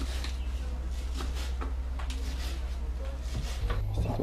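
Faint clicks and knocks of cookware and utensils being handled in a small kitchen, over a steady low hum that shifts a little near the end, where a few sharper clinks come.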